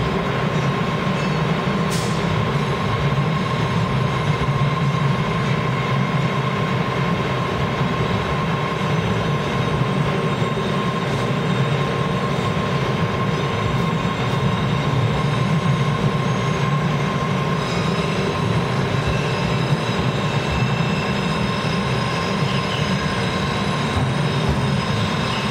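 Subway train cars rolling slowly past at close range: a steady heavy rumble of wheels on rail with a thin, steady high-pitched tone held over it, and one sharp click about two seconds in.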